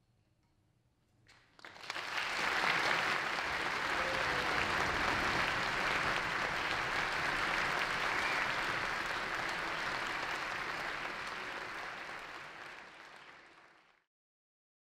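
Audience applauding: after near silence, clapping breaks out about a second and a half in, holds steady, then fades and cuts off suddenly near the end.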